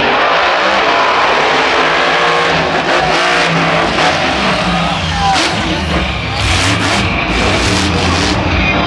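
Monster truck's supercharged V8 engine running and revving as it drives across a dirt stadium floor, heavier low engine sound from about halfway through, amid stadium crowd noise.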